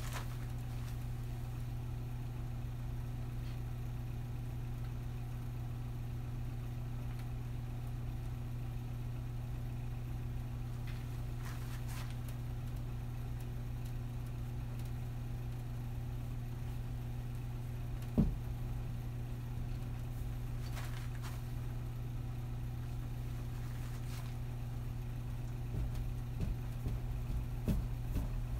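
Steady low hum, with one soft knock about eighteen seconds in and a few faint, brief scratchy sounds.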